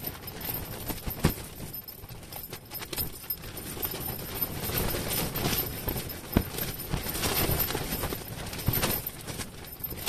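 Ice-fishing tent fabric buffeted by wind: a rustling hiss that swells in the middle, with scattered sharp snaps and knocks.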